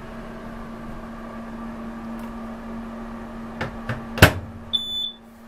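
A built-in RV microwave's door is swung shut, with a couple of light knocks and then a sharp latch click about four seconds in, followed by one short electronic beep. A steady low hum runs underneath until the click.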